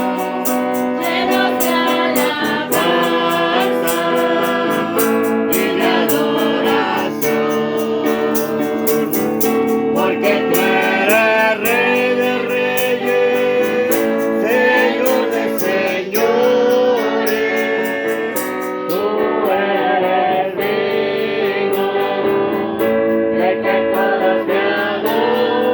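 Worship song: singing over a strummed guitar.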